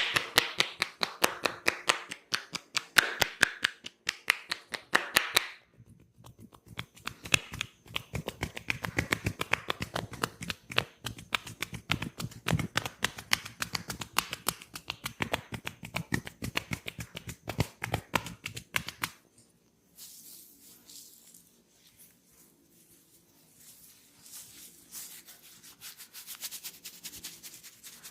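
Hands tapping and slapping quickly on a head during a massage, many sharp strokes a second, with a short break about five seconds in. About nineteen seconds in the tapping stops and gives way to softer rubbing of hands on skin.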